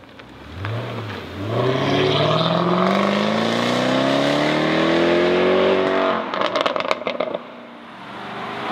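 Jaguar F-Type SVR's supercharged V8 gives a quick rev blip, then a long pull with the pitch rising steadily for about four and a half seconds. A rapid run of exhaust pops and crackles follows as the pull ends.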